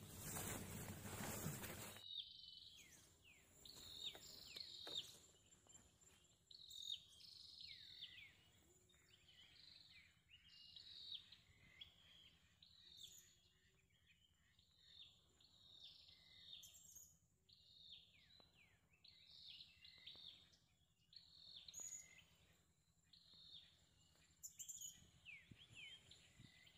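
Faint bird calls: short chirps that fall in pitch, repeated over and over. A brief hiss of noise fills the first two seconds.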